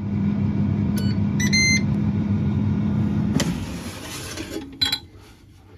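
Air fryer fan running with a steady hum, with short electronic beeps about a second and a half in. A little past the middle comes a brief rush of noise, and then the hum stops.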